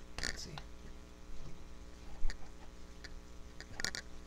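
Handling noise from a V-Force Grill paintball mask: scattered plastic clicks and rustles as the strap clamps are pinched and worked loose from the frame, with one louder dull knock a little past two seconds in.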